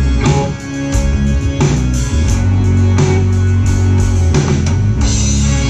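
Live band playing an instrumental passage: electric and acoustic guitars over a strong bass line, with regular drum hits.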